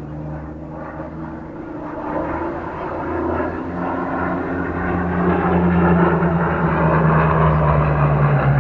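Propeller aircraft engine droning as the plane flies in, growing steadily louder.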